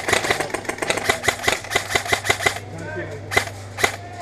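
Airsoft guns firing rapid single shots as sharp cracks, about five or six a second for two and a half seconds, then a pause and two more shots near the end.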